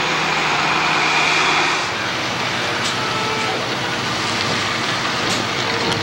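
A motor vehicle running, with a steady rushing noise and a low engine hum.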